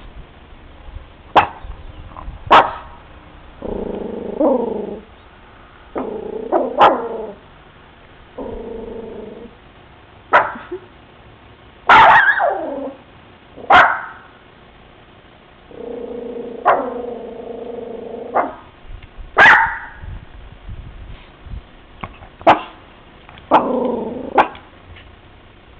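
Dog barking in sharp single barks every second or few, between longer, lower, drawn-out calls: alert barking at people outside.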